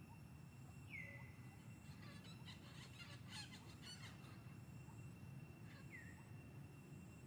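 Faint birdsong over quiet outdoor ambience. A whistled note slides down and holds briefly about a second in and again near the end, with a short run of quick chirps in the middle.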